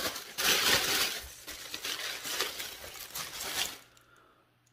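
Dark tissue paper crinkling and rustling as a metal tiara is unwrapped from it, loudest in the first second and stopping a little before the end.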